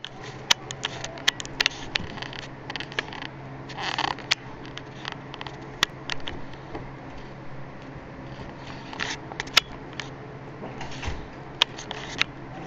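Two Chinese Crested dogs, a mother and her puppy, play-wrestling: short scuffles of paws and bodies on a couch, with many scattered sharp clicks. A steady low hum runs underneath.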